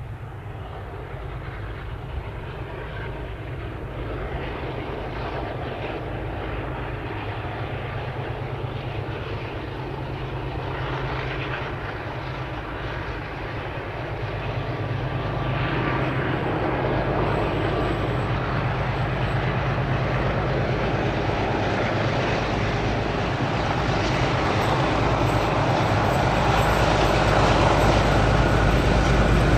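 Two ALCO diesel-electric locomotives, a NSW 44 class and a 45 class, running under power with a deep, steady engine drone. The drone grows louder as the train approaches, rising most clearly in the second half.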